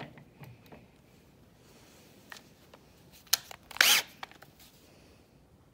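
Small clicks of a Makita cordless drill and bit being handled, then about four seconds in a short burst as the drill's motor is run for a moment, spinning the chuck onto the bit.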